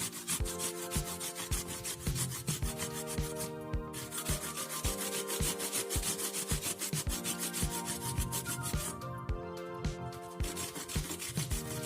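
Kencur (aromatic ginger) root being grated on a hand grater: a steady run of short rasping strokes, over soft background music.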